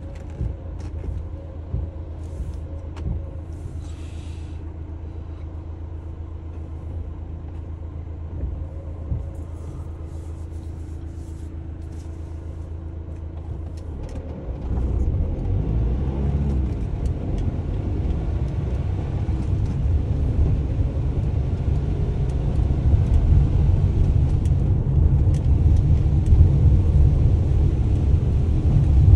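Delivery van engine idling with a steady low hum, then about halfway through the van pulls away and a louder low rumble of engine and road builds as it drives.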